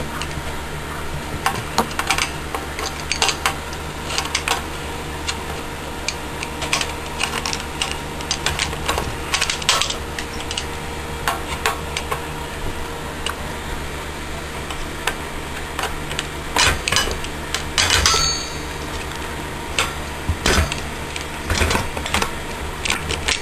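Irregular metal clicks and clinks of a wrench and Allen key working on a bicycle kickstand bolt, louder for a couple of seconds past the middle, over a steady low hum.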